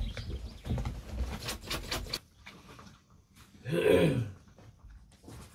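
Rustling and clicking handling noise for about two seconds, then, about four seconds in, a single short voice-like sound that slides in pitch.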